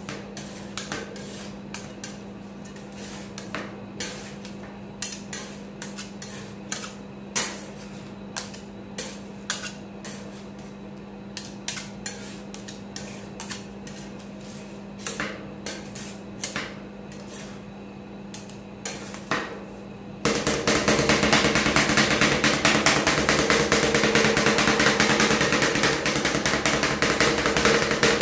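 Steel spatulas striking and scraping a frozen stainless-steel ice-cream roll plate as ice cream mix is chopped and worked while it freezes. For most of the time there are separate taps and clicks over a steady low hum. About two-thirds in it turns suddenly into fast, continuous, louder chopping and scraping.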